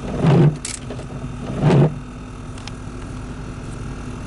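Chevy Tahoe running, with the steady drone of its dash blower motor, which is failing. Two short louder surges come in the first two seconds.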